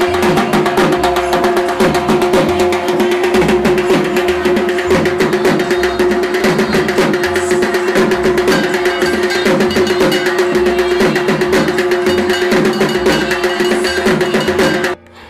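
Dhak drums, the two-headed Bengali barrel drums of Durga Puja, beaten fast and loud with sticks in a dense, steady rhythm over a held ringing tone. The drumming cuts off abruptly near the end.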